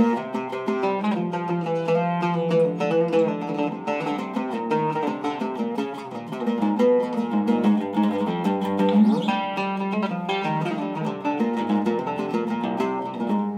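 A Zaryab oud with a cedar soundboard and Kröchner strings being played solo with a plectrum: a stream of quick picked notes and runs across the instrument's range, with a brief rising slide about nine seconds in.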